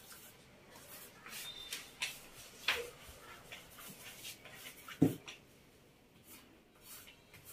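Faint dabbing and brushing of a paint brush against a plastic stencil taped to a wall, with a few sharp knocks, the loudest about five seconds in.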